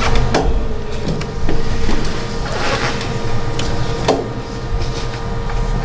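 Steady low hum of a meeting room, with a handful of short rustles and knocks scattered through it.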